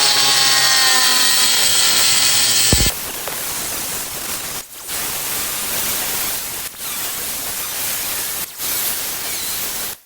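Angle grinder cutting into ceramic tile: for the first few seconds the motor's whine falls in pitch as the blade bites, then a steady grinding hiss, briefly interrupted three times, that stops abruptly near the end.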